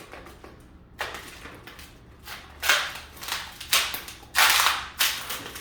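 Latex 260 modelling balloon being twisted by hand into a pinch twist: about five short rubbery scrapes, the longest and loudest near the end.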